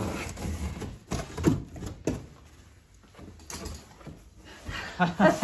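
Rummaging in a cardboard box: rustling packaging and scattered light knocks and clicks as parts are handled, with a brief voiced sound near the end.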